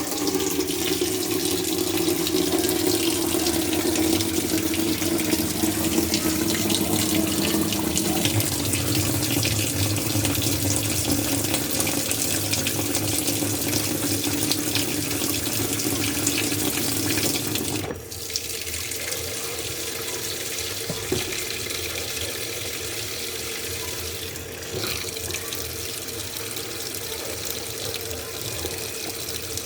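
Washing machine filling with water: a steady rush of water pouring into the drum, with a low hum under it that drops in pitch about eight seconds in. About eighteen seconds in the flow suddenly becomes quieter and thinner.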